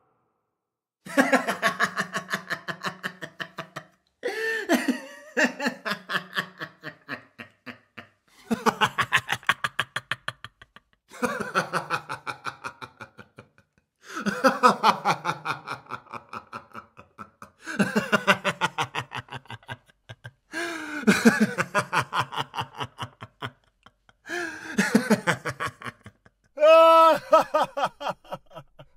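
A man laughing in a string of separate bouts of rapid "ha-ha" pulses, each lasting two to three seconds with short silences between. The last bout, near the end, is higher and more sung-out than the rest.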